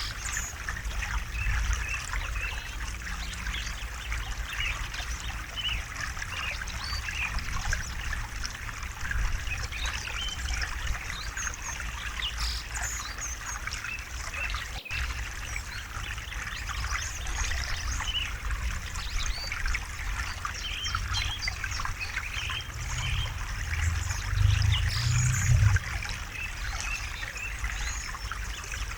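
River water flowing and trickling steadily, with a low rumble underneath that swells for a couple of seconds near the end.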